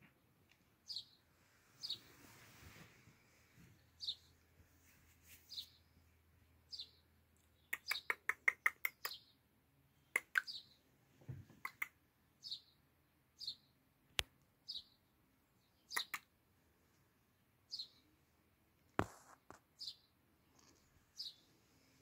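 A small bird giving short, high chirps over and over, about once a second. A quick run of clicks comes partway through, with a few single sharp clicks later.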